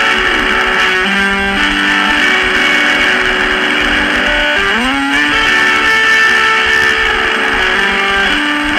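Lo-fi guitar music from a cassette recording: sustained, held guitar notes and chords at a steady level, with notes sliding up in pitch about halfway through.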